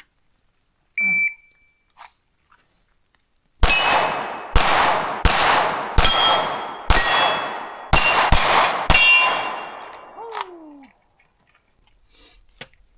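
A shot timer's single start beep, then about two and a half seconds later a Glock pistol fires eight shots over about five seconds, each shot followed by ringing.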